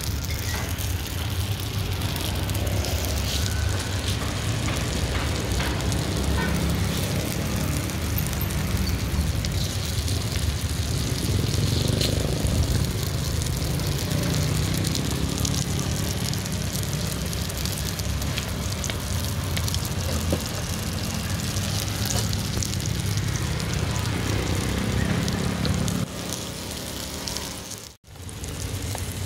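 Steady low rumble and hiss of the gas burner heating a metal cilor griddle pan, with light clicks as tapioca cubes are dropped into the pan's cups; the sound drops out briefly near the end.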